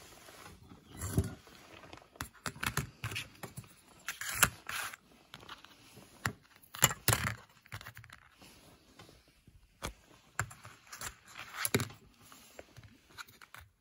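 Black plastic clip-on ferrite core cases being handled and set down on a mat: irregular clicks, taps and short scrapes, the loudest about four and seven seconds in.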